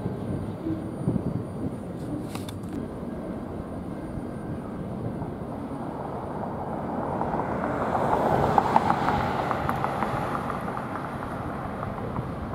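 Freight train of loaded ballast hopper cars rolling along the track: a steady rumble of wheels on rail that swells for a few seconds past the middle, with a run of light clicks at its loudest.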